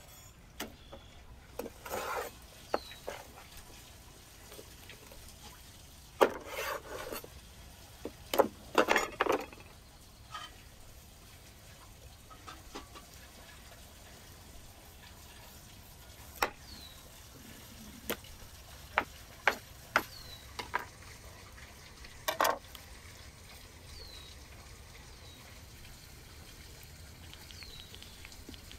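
A knife cutting up raw whole chickens on a wooden cutting board: scattered sharp knocks of the blade meeting the board, with short wet cutting and handling noises between. Faint bird chirps, short falling notes, recur every few seconds.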